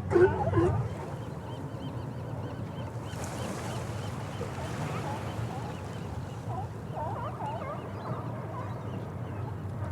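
Honking animal calls, loud in the first second and again more faintly about seven seconds in, over a steady low hum with faint high chirping.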